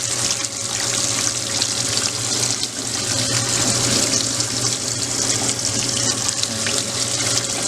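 Water running steadily into a washing machine tub filled with microfiber towels and detergent suds, with a low steady hum beneath it.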